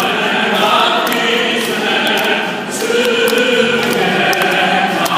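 A group of voices singing together in unison, with sustained held notes, like a congregation or choir singing a praise song.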